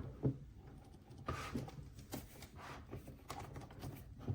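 Faint scattered clicks and small knocks of a metal espresso portafilter being handled and fitted into the group head of a Breville Oracle Jet espresso machine.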